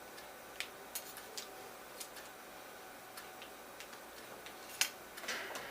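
Scattered light clicks and taps from smart-lock parts being handled and fitted against the door, a handful of them, with one sharper click a little before the end followed by brief rustling.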